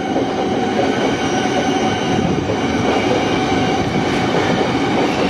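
Thameslink Class 700 electric train running into the platform: a steady, loud rumble of wheels on rail, with a faint steady whine on top.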